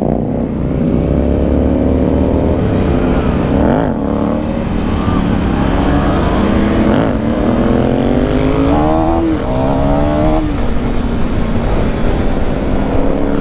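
Motorcycle engine accelerating hard through the gears, its pitch climbing and then dropping back at each of about four upshifts, over a steady low wind rumble. The close engine is the KTM Duke 390's single-cylinder, and it rides among much louder superbikes.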